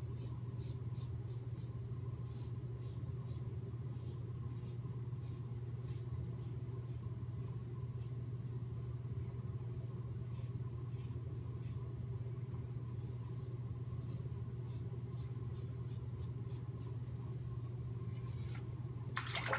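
Merkur 37 slant-head safety razor with an Astra blade scraping through lathered stubble on the neck in short strokes, a few a second, on a cross-grain pass, over a steady low hum. A louder burst of noise comes just before the end.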